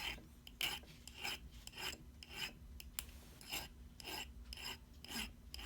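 A hand file scraping back and forth across the cut end of 12-gauge brass wire, in even strokes about two a second, smoothing the end of a wire clasp.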